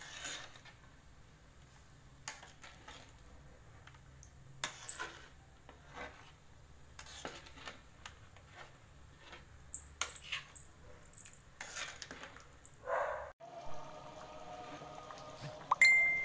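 Metal ladle stirring a thick coconut-milk beef curry in a black wok, with irregular clinks and scrapes against the pan. After a brief dropout about three-quarters of the way in, background music with steady tones comes in.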